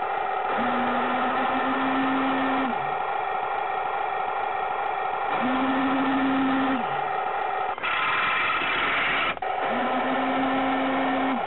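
Heng Long Tiger II RC tank running as it drives: a steady whine, with a lower hum that cuts in and out every second or two. A loud noisy burst lasts over a second about eight seconds in.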